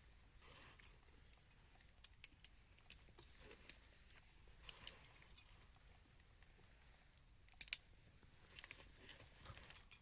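Faint, irregular sharp clicks and ticks, about a dozen, some in quick pairs or small clusters, over a near-silent background.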